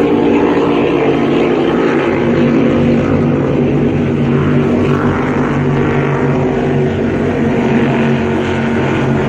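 Offshore superboat racing engines running at speed: a loud, steady drone of several level engine tones.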